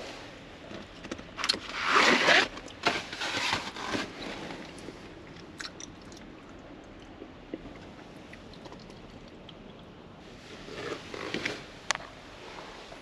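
Close-up scraping and crunching noises in bursts, loudest about two seconds in and again near the end, over a steady hiss of rain on the camper shell.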